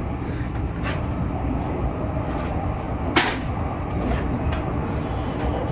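Running noise of an E257 series 0 electric train heard from inside the carriage: a steady low rumble with a few sharp clicks, the loudest about three seconds in.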